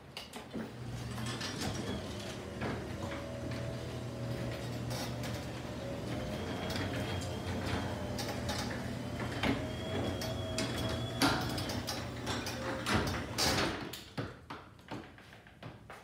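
Electric garage door opener running, moving a sectional garage door along its tracks with a steady motor hum and a faint whine for about twelve seconds. The run ends with a few clicks and knocks as the door stops.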